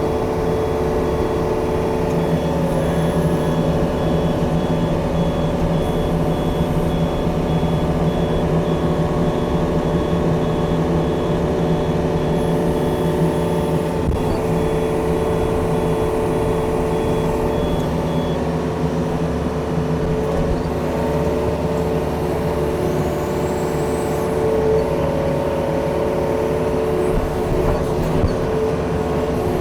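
Yanmar diesel engine running steadily under work as the machine pushes dirt, with a faint high repeating beep that stops a little over halfway through.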